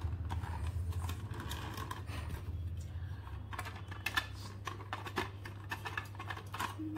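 Light clicks and taps of hard plastic as the green plastic tower and perforated bowl top of a marble-drop game are handled and pressed together. The clicks come more often in the second half, over a steady low hum.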